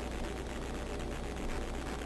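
Steady background noise: a constant low hum with an even hiss over it, unchanging throughout.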